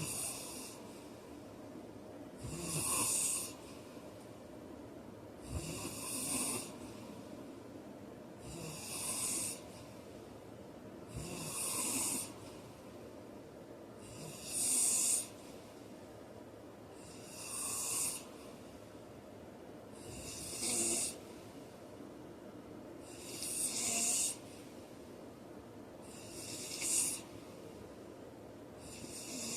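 A man snoring in his sleep, one snore roughly every three seconds in a steady, regular rhythm, each lasting about a second.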